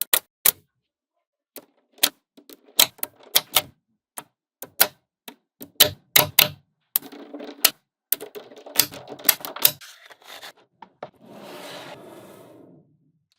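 Small magnetic balls clicking together in quick, irregular runs as they are snapped into place one after another. Near the end there is a longer stretch of rattling as the balls roll and shift against each other.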